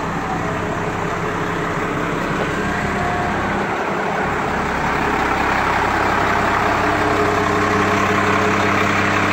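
Heavy diesel fire-engine motor idling steadily, growing a little louder and fuller about halfway through. At the very start, the tail of a siren winding down fades out.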